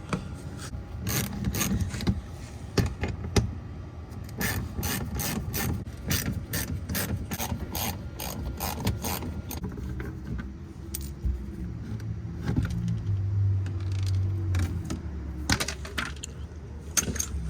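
Hand ratchet clicking in several runs of quick, even clicks as it backs out the 10 mm bolts holding the oil pan skid plate.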